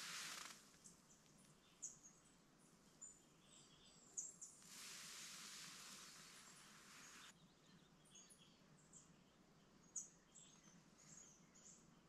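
Faint, scattered high chirps and chip notes of small forest birds, several of them short and sharp. A soft hiss rises for a few seconds in the middle.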